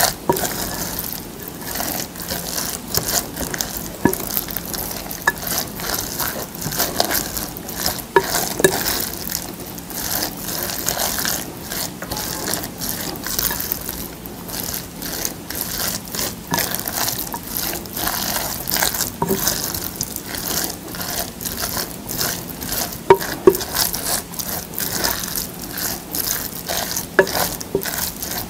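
A plastic spoon stirring and mashing rice in a glass bowl: a steady run of quick scrapes against the glass, with the sticky rice squelching and sharper clicks here and there.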